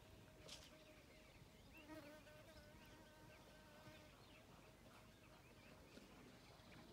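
Faint insect buzzing, a wavering hum that is strongest in the middle, with scattered faint bird chirps.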